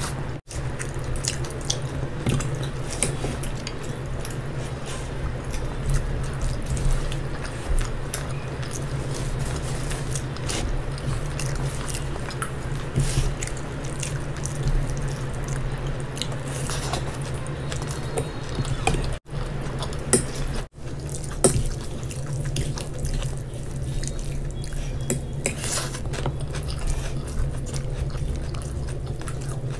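Close-miked wet chewing and mouth smacking of people eating noodles, fried rice and gravy by hand and with a fork, with many small clicks and a steady low hum underneath. The sound drops out briefly a few times.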